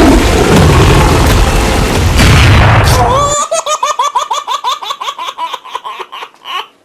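A loud, bass-heavy crash of sound, then a high-pitched giggling laugh: a rapid run of short, falling notes for about three seconds that fades out near the end.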